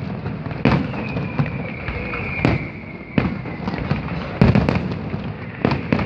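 Fireworks display: shells bursting in a string of sharp bangs, with crackling in between. A high steady whistle starts about a second in and fades near the middle.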